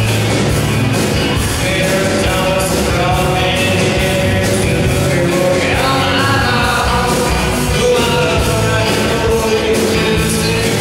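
Live rock band playing, with saxophones, electric guitar and a steady drum beat.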